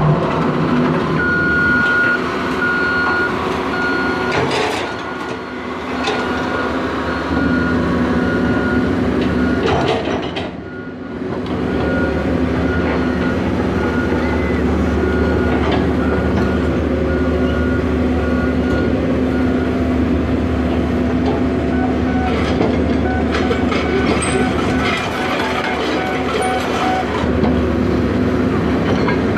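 Caterpillar 320D hydraulic excavator's six-cylinder diesel engine running steadily close by, with a construction machine's backup alarm beeping over and over that stops about two-thirds of the way through.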